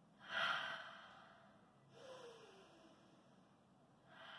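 A woman breathing out hard while holding a stretch after exercise: a loud sighing exhale about half a second in, a softer sigh with a falling hum around two seconds, and another breath near the end.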